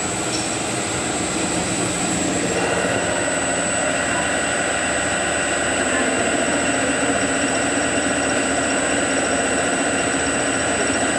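Four-spindle CNC special-purpose machine cutting a submersible-pump capsule: spindles running and tools cutting with a steady mechanical whine and rasp, under a spray of coolant. A set of steady high tones joins in about two and a half seconds in.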